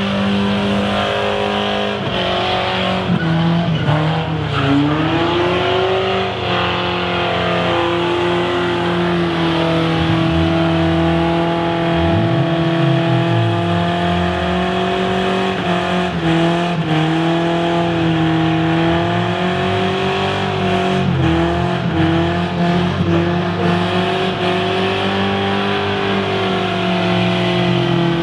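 A car engine held at high revs with tyres squealing, as in a burnout. The revs dip and climb back a few times.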